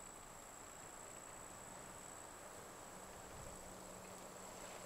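Faint, steady high-pitched insect song: a continuous unbroken drone from singing insects in the grass.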